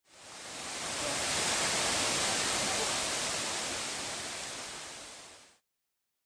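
Water pouring over a stone dam wall into a gorge: a steady rushing hiss that fades in at the start and fades out shortly before the end.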